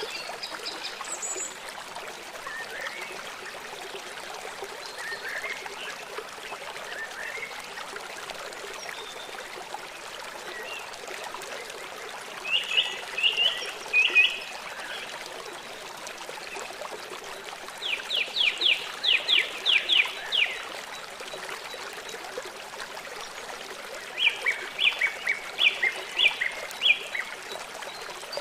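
Water running steadily, with three bursts of rapid repeated high animal calls, several notes a second, about a third of the way in, past the middle and near the end.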